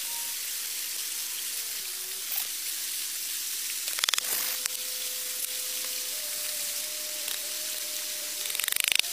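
A few sharp knocks about four seconds in as a hatchet head drives a wooden peg into a hole drilled in a log, over a steady background hiss. A louder scraping, rustling burst comes near the end.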